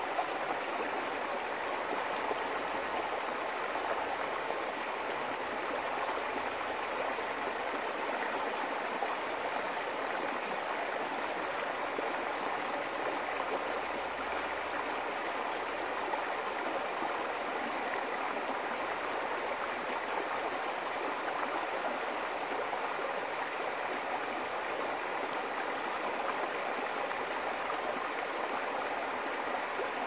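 Shallow, rocky mountain river flowing over and between stones: a steady, unbroken rush of running water.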